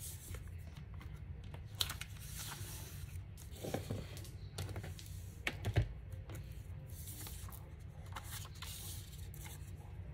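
Paper being handled on a tabletop: sheets and an envelope slid, shuffled and rustled, with a few light taps, the loudest about six seconds in, over a steady low hum.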